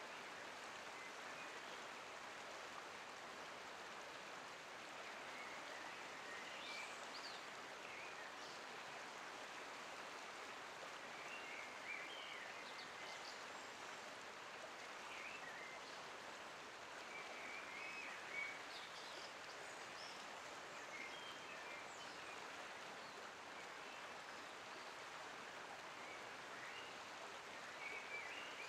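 Faint, steady outdoor ambience: an even hiss with scattered distant bird chirps.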